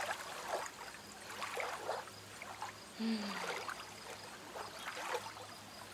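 Soft background ambience of gently trickling, lapping water, with irregular small splashes. A brief low falling tone sounds about three seconds in.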